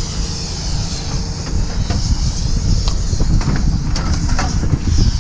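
Scrap metal clanking in a few light knocks over a steady, loud low rumble.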